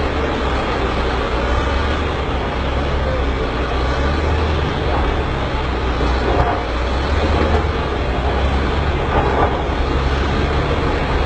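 Heavy diesel engines of bulldozers running steadily with a continuous low rumble.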